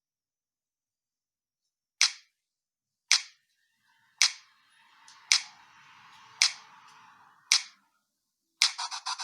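A preset ringtone on a BQ Universe smartphone playing as six sharp clicks, about one a second, with a faint hiss under the later ones; a fast run of ticking notes starts near the end.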